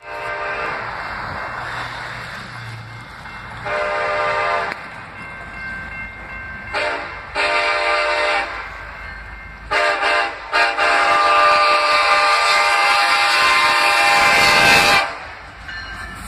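Ferromex freight locomotive's multi-chime air horn blowing a series of blasts for the grade crossing as it approaches. There are about six blasts, one of them short, and the last is the longest and loudest, held for about four seconds.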